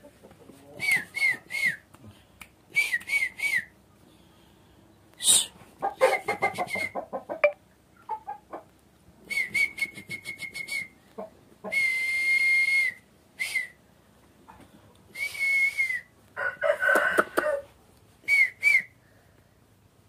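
Repeated breathy whistling, short notes in quick twos and threes and a couple of longer held notes, as if calling to a bird. An aseel rooster's short calls break in twice, partway through and again near the end.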